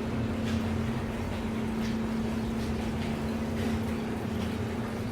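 Steady low hum with a constant tone, as from a running motor or appliance, with a few faint light clicks over it.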